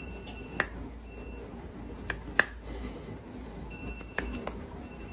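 A dog snapping its jaws at food held just above its nose: several sharp clacks of teeth closing, at irregular intervals, over a low steady hum.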